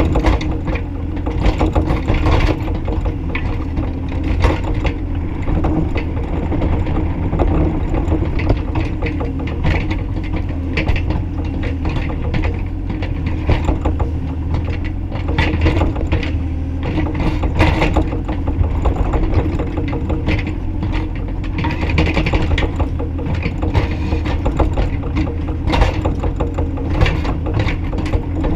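Bobcat E35i mini excavator's diesel engine running steadily under load, with frequent metallic clanks and rattles from the working machine.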